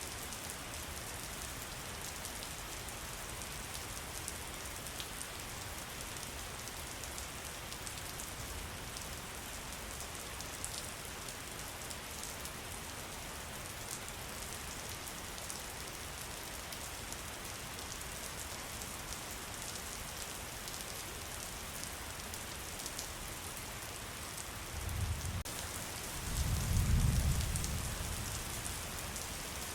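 Steady rain falling, with scattered drops ticking through it. Near the end a low rumble of thunder swells for about three seconds and fades.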